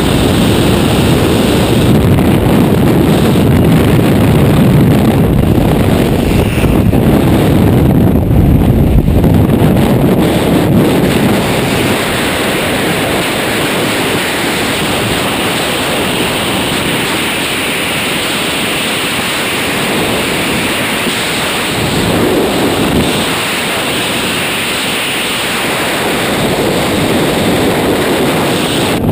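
Rushing freefall wind buffeting a helmet-mounted camera's microphone, loud and unbroken; deeper and heavier for about the first twelve seconds after the exit from the aircraft, then steadier.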